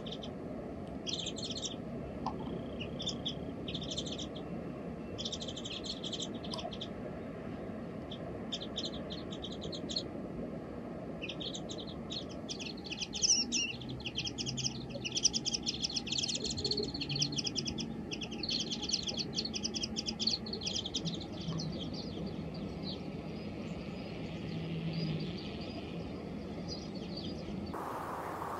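Small songbirds chirping in short, high repeated calls, sparse at first, then a dense run of rapid chattering from about twelve to twenty-one seconds in, thinning out near the end.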